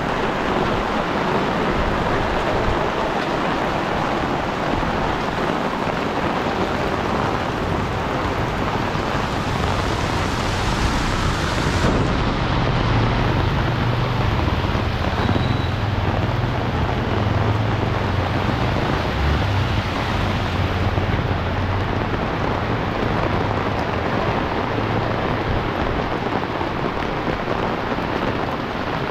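Heavy rain pouring steadily onto a paved street. A long low rumble runs under it from about ten seconds in until about twenty-five seconds in.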